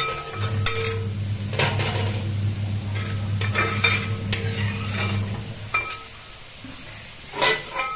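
Metal ladle stirring vermicelli payasam in a steel pot, scraping and clinking irregularly against the pot, over a low steady hum that stops near the end.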